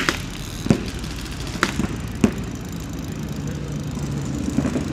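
Scattered paintball marker shots: single sharp pops at irregular intervals, three in the first half and a quick few near the end, over a steady low hum.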